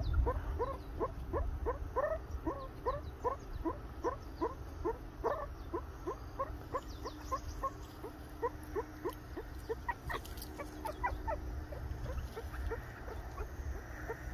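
Meerkats giving a steady run of short, rising alarm calls, about three a second, which thin out after about ten seconds: their alarm at a leopard cat seen in the distance.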